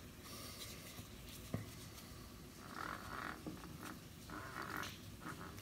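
Faint rubbing of a small piece of paper towel wiping excess super glue from around a freshly glued cue tip, in a few short strokes, with one light click about a second and a half in.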